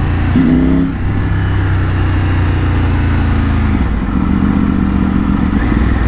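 Triumph Tiger 900's three-cylinder engine through a Scorpion aftermarket exhaust, running steadily as the bike rolls at low road speed and slows. The engine note shifts about four seconds in.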